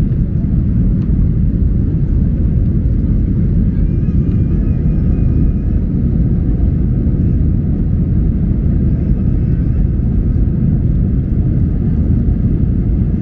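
Steady low rumble of a Boeing 737's jet engines and rushing air, heard inside the passenger cabin during the climb after takeoff.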